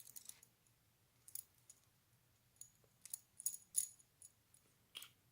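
Faint, scattered light clicks and taps of a diecast toy car's small metal and plastic parts being handled as it is taken apart, bunched together around three to four seconds in, over a faint steady low hum.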